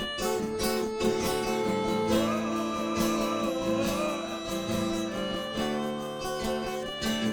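Live band playing an instrumental passage of a song: strummed guitars under sustained chords, with a wavering lead melody that enters about two seconds in.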